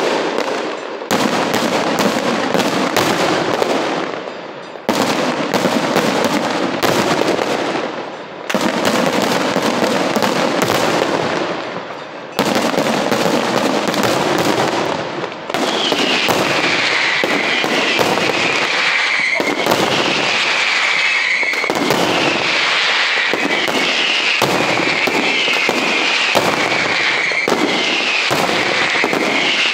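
Daytime aerial fireworks barrage: rapid, dense bangs and crackling from bursting shells, with brief lulls in the first half. From about halfway on, repeated falling whistles sound over the bangs.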